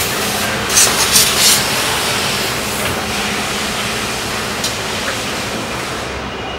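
An industrial vehicle being driven along a concrete warehouse aisle: a steady running and rolling noise with a few rattles about a second in.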